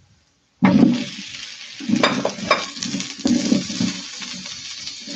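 Sliced onions dropped into hot oil with garlic, sizzling loudly at once about half a second in, then stirred with a spatula: repeated scraping strokes over a steady frying sizzle as the onions and garlic sauté.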